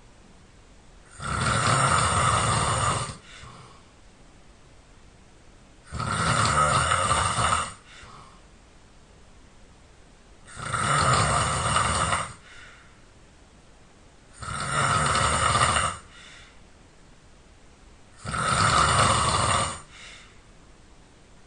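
A person snoring loudly in deep sleep, with five long snores about every four seconds, each lasting about two seconds, and quiet between them.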